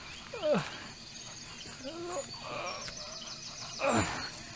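A wounded man groaning in pain: several short falling groans, the loudest and roughest near the end, against steady high chirping.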